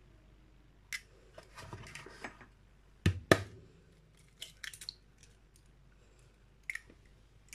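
Eggs being cracked on the rim of a plastic mixing bowl: a few sharp shell cracks, the loudest two in quick succession about three seconds in, with lighter crackles of shell being pulled apart in between.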